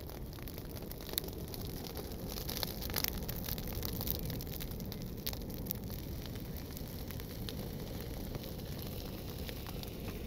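Wood campfire crackling, with scattered sharp pops over a steady hiss.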